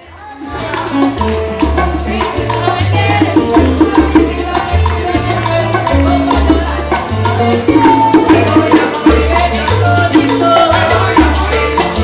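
A Cuban son band playing live: acoustic guitars, upright bass and maracas, with a woman singing, over a steady, repeating bass line. The music comes in about half a second in.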